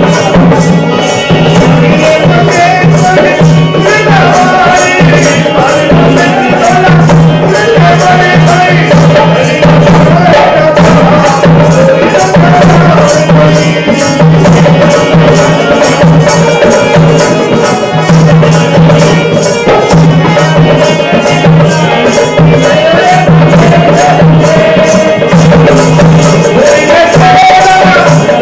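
Indian folk music played on a harmonium and a dholak drum, with a wavering sung or played melody over a steady, quick beat and a low, pulsing drone.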